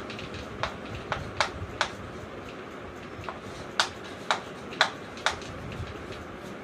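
Writing being done by hand: a series of short, sharp taps and clicks of the writing tip on the surface, irregularly spaced, with a brief pause partway through.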